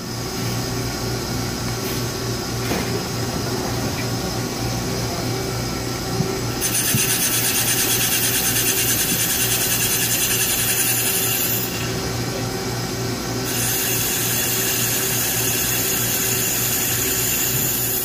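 1991 Mazak Super Quick Turn 15MS CNC lathe running with a steady machine hum. A higher hissing whine comes in about six and a half seconds in, stops a little before twelve seconds and starts again about a second and a half later.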